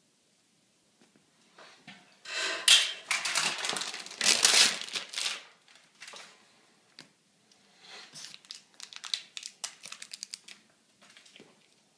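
Crinkling and rustling of packaging being handled and torn, in two long bouts in the first half, then a run of quick crackles near the end.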